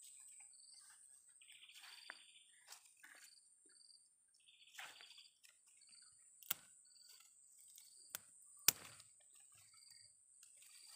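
Insects giving a steady high-pitched trill, with a short high chirp repeating about once a second and two buzzy calls, about two and five seconds in. A few sharp clicks stand out, the loudest about nine seconds in.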